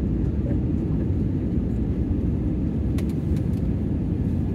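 Jet airliner cabin noise heard from a window seat over the wing on final approach: a steady low rumble of the turbofan engines and airflow. A faint tick comes about three seconds in.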